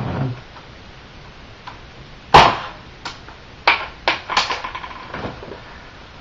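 A test shot from a Nerf Nite Finder modified to fire airsoft BBs: one sharp snap, the loudest sound, about two seconds in, followed by several lighter clicks and knocks over the next three seconds.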